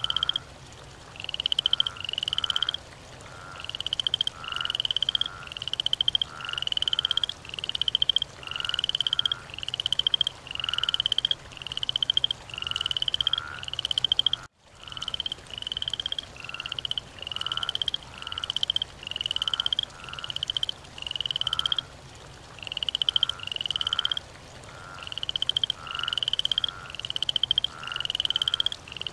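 Frogs calling in a steady chorus of short, rising, rattly croaks, about one or two a second, with a brief dropout about halfway through.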